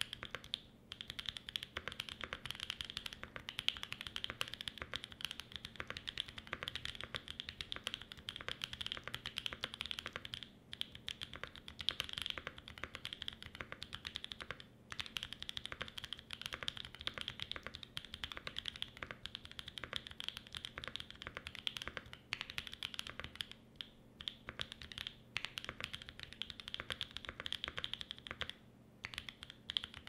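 Mode 80 mechanical keyboard with lubed Holy Boba franken switches, an FR4 plate and GMK Rudy keycaps, typed on quickly and steadily: a continuous stream of key clacks with a few brief pauses.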